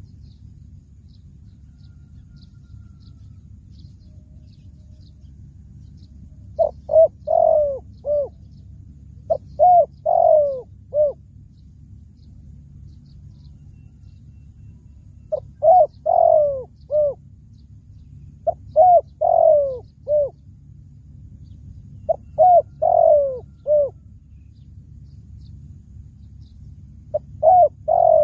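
Spotted dove cooing: six phrases of three or four short, slightly falling coos, a few seconds apart, the last phrase cut off at the end. A steady low rumble runs underneath.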